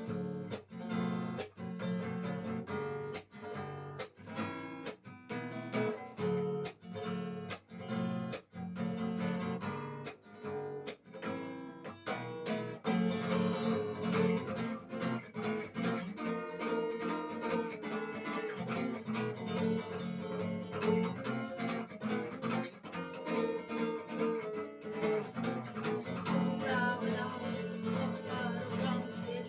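Acoustic guitar strumming chords in a steady rhythm. For about the first twelve seconds the strokes are sharp and separated by short gaps; after that the strumming turns fuller and more continuous.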